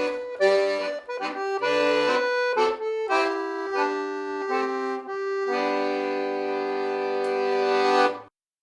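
Background music in a traditional style, led by an accordion playing a tune of short chords, then ending on one long held chord that cuts off suddenly near the end.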